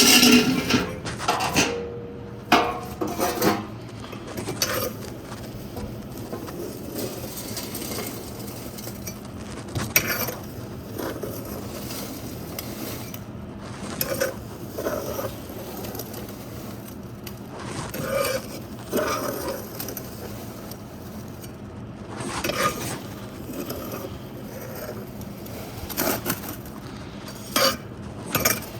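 Metal tools scraping and clinking inside a homemade fireplace as the ash is cleared out, in irregular strokes, loudest at the very start.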